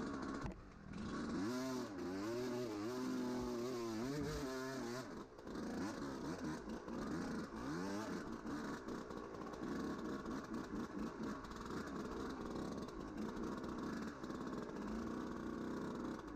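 Dirt bike engine under way off-road, its pitch rising and dropping repeatedly as it revs and shifts through the gears, then running more steadily in the second half.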